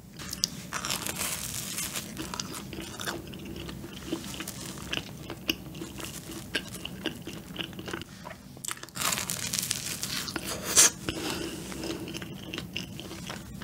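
Close-miked biting and chewing of a sugar-coated, cream-filled fried donut: soft dough and cream worked in the mouth with many small wet clicks. It grows louder for a couple of seconds about two-thirds of the way through, which fits a fresh bite.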